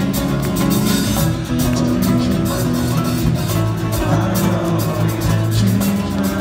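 Nu-metal band playing live, heard from the crowd: heavy held guitar chords over drums and frequent cymbal hits.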